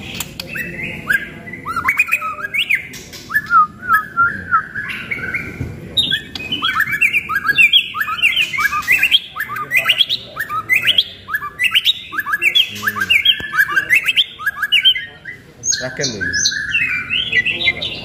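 White-rumped shama (murai batu) singing in its cage: a long run of fast, varied whistled phrases and quick repeated chirps. The song is densest in the middle, dips briefly near the end, then starts again.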